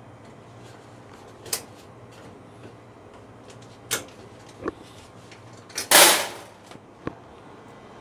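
Hands working inside a freezer's sheet-metal evaporator section: a few sharp clicks and knocks, and one loud, rasping scrape about six seconds in, over a low steady hum.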